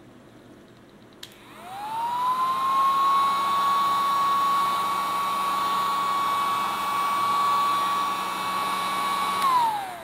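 WaxVac battery-powered ear wax vacuum switched on with a click: its small motor spins up in a rising whine, then runs steadily at one high pitch. Near the end it starts to wind down, the whine falling as it is switched off.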